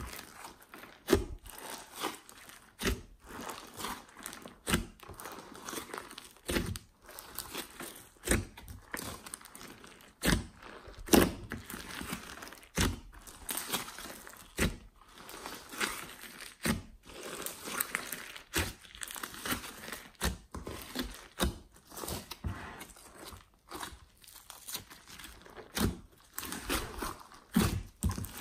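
Hands squishing, stretching and folding a large batch of slime mixed with clay and foam beads. It makes wet squelching and crackling sounds, with sharp pops every second or two.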